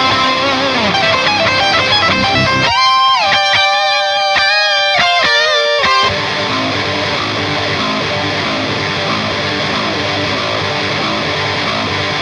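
Band music led by high-gain electric guitar through a Diezel VH4 tube amplifier. About three seconds in the low end drops out and a lone lead guitar plays sustained notes with bends and vibrato for about three seconds, then the full band comes back in.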